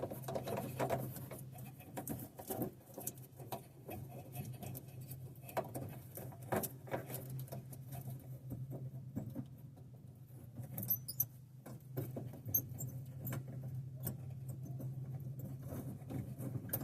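Irregular small clicks, scrapes and rustles of a hand fitting a new 9005 halogen headlight bulb and its wiring into the plastic headlight housing, over a steady low hum.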